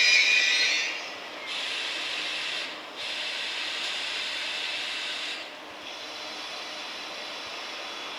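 Train wheels hissing and squealing against the rails as a train rolls past, coming in two strong bursts and then going on more faintly.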